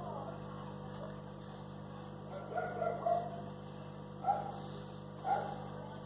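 Steady low electrical hum, with a few short faint yelps, like a distant dog, about a second apart in the second half.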